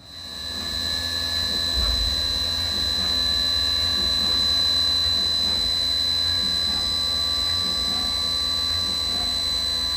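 Optimill F80 CNC milling machine's spindle starting and running steadily, with a strong high-pitched whine over a low rumble.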